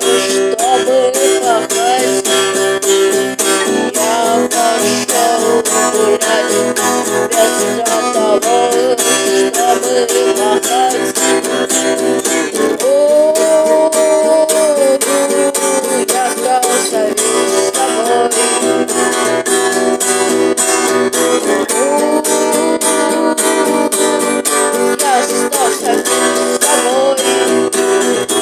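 Instrumental break of a rock song: a lead guitar plays a melody over strummed guitar, bass and a drum machine, holding two long notes, about halfway through and again near the end.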